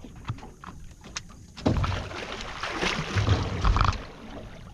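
Water splashing and churning hard against the side of a small boat as a hooked alligator thrashes at the surface. The splashing starts suddenly a little under two seconds in, after a few light knocks, and ends with heavy low thuds.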